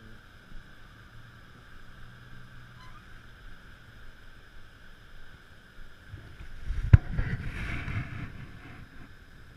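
Steady rushing background of river water around an aluminum fishing boat, with a sharp knock about seven seconds in followed by a second or so of low rumbling.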